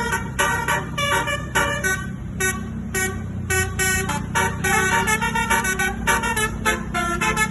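Telolet horn of the Wijaya Trans bus 'Kuwu Anom' playing a quick tune of short, pitched horn notes, several a second, over the low running of the bus engine.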